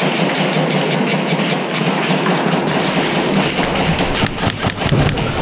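Airsoft gunfire in a large indoor arena: a dense clatter of rapid shots and BB impacts, growing busier about three and a half seconds in, with knocks and rustle from the player's own gear as he moves.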